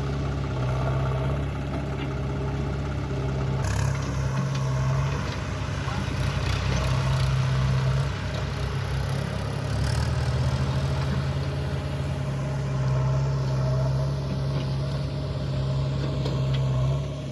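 Diesel engine of a JCB 3DX backhoe loader running under changing load, its low note shifting up and down several times, with scattered clanks between about four and ten seconds in.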